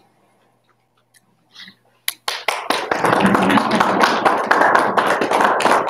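A small group of people applauding. It starts suddenly about two seconds in, after near silence with a few faint ticks, and continues steadily.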